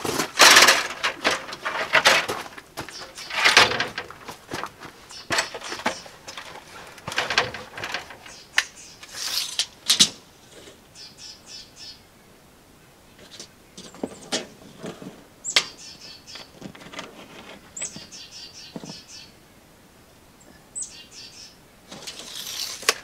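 Knocks and clatter of a stepladder being opened and climbed through the first half. Then birds chirp in several short high phrases over a quiet background, some opening with a quick falling whistle.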